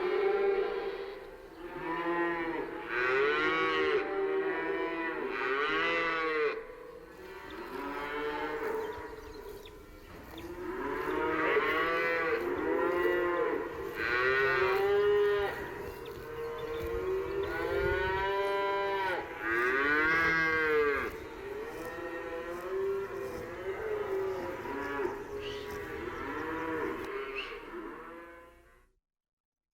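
Cattle mooing repeatedly: long, rising-and-falling calls, several often overlapping. The sound cuts out suddenly shortly before the end.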